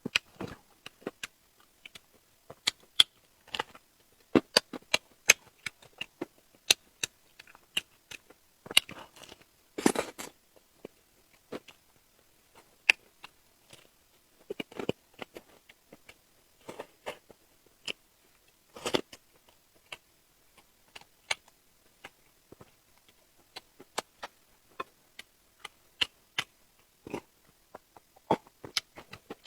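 Close-miked sounds of someone eating seafood: irregular crisp clicks and smacks of biting and chewing, with a few longer noisy stretches about 9, 15 and 19 seconds in.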